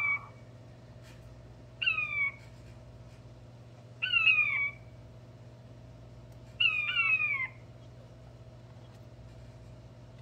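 Button quail (mini quail) crowing: loud, short whistled notes that slide downward in pitch, one about every two seconds, the last one doubled, then a pause near the end.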